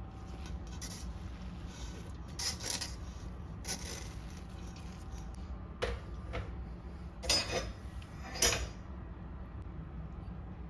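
Kitchen dishes and utensils being handled: a scattered series of short clinks and scrapes, the loudest two close together near the end, over a steady low hum.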